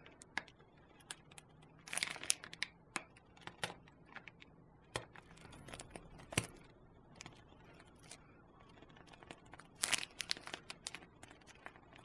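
Plastic piping bag crinkling and crackling in the hand as it is squeezed to pipe whipped double cream, in faint, irregular short bursts.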